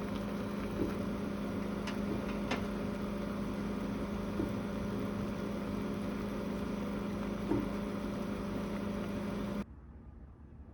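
Microwave oven running with a steady electric hum and a few light clicks, then cutting off suddenly near the end.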